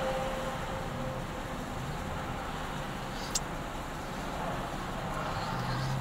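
Steady hum of an idling car heard from inside its cabin, with one small click about three seconds in.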